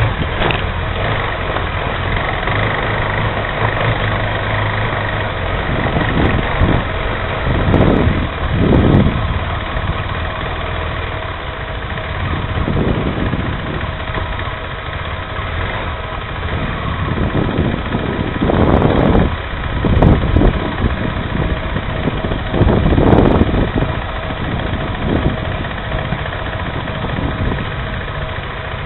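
Off-road motorcycle engine running at idle, with a few louder swells now and then.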